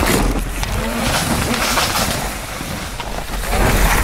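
Mountain bike tearing down a loose dirt trail: knobby tyres skidding and spraying soil through the turns, with rattles and knocks from the bike over the rough ground. It gets louder again just before the end.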